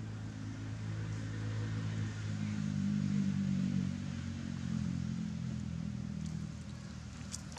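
A motor vehicle's engine running steadily off to one side, growing louder about two to three seconds in and then easing off as it passes.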